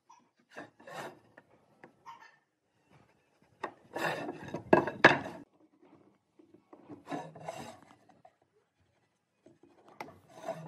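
Wood being scraped and rubbed by hand in irregular bursts of strokes, with two sharp knocks of wood about five seconds in.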